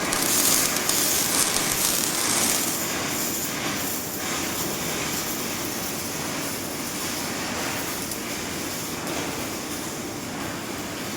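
Welding in progress: a steady, dense crackling hiss of the weld and its sparks, a little louder for the first couple of seconds, then settling to an even level.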